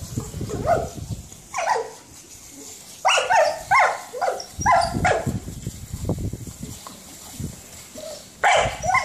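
A kelpie barking and yapping in short bursts while snapping at the water spray from a lawn sprinkler: several barks in the first five seconds, a few quieter seconds, then one more bark near the end.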